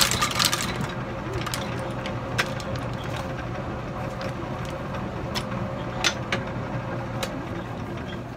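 Shoe outsole stitching machine making its rapid stitching strokes, which stop about a second in; its motor keeps humming steadily afterwards, with a few sharp clicks as the stitched shoe is pulled away.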